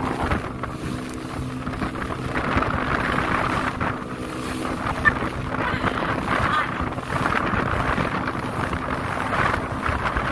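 Boat engine running at a steady speed, a constant hum, with wind rushing on the microphone.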